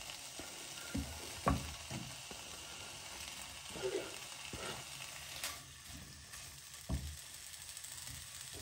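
Boiled chicken pieces landing in hot oil in a non-stick frying pan and sizzling steadily, with a few soft knocks and scrapes as a silicone spatula pushes them off a wooden cutting board.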